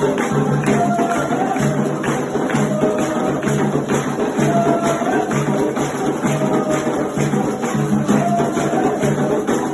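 Candomblé ceremonial music: a percussion ensemble keeping a steady, fast rhythm, with voices singing over it.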